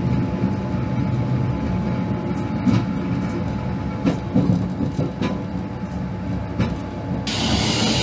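Sleeper train rolling over the rails with a low rumble, its wheels clacking over points and rail joints every second or so. A steady hiss suddenly sets in near the end.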